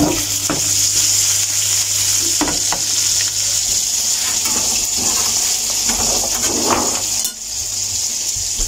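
Steady sizzling hiss of beef mince patties (keema tikki) shallow-frying in oil in a pan, with a few light clicks and knocks; the hiss breaks off briefly about seven seconds in.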